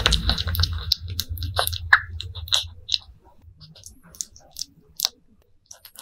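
Baby civet chewing soft food taken from fingers: a run of quick, wet mouth clicks and smacks, busiest in the first three seconds and sparser after, over a low rumble that fades about three seconds in.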